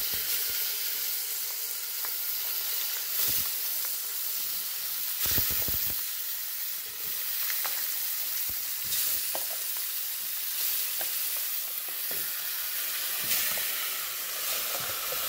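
Seasoned chicken pieces sizzling as they are spooned into a hot aluminium pot, a steady frying hiss, with short knocks of the metal spoon against the pot, the strongest about five seconds in.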